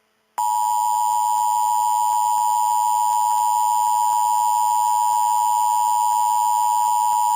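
Emergency alert attention tone: a single loud, steady tone near 1 kHz that starts about half a second in and holds unbroken, the alarm that signals a tornado warning is about to be broadcast.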